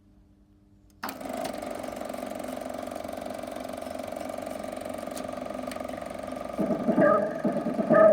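Elmo SC-18 M 8mm sound projector starting about a second in and then running with a steady, fast mechanical whirr. Near the end, music comes in over it.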